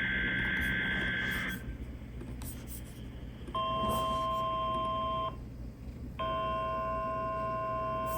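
NOAA Weather Radio broadcast heard through a receiver: a warbling EAS/SAME data burst cuts off about a second and a half in. After a stretch of radio hiss and hum, a steady alarm tone sounds for about two seconds, then again for about three seconds after a short gap.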